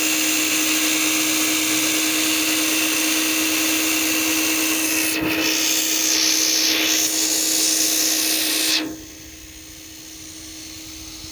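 An electric power tool running at steady speed with a constant motor hum, its sound growing hissier for a couple of seconds in the middle, then switching off about nine seconds in.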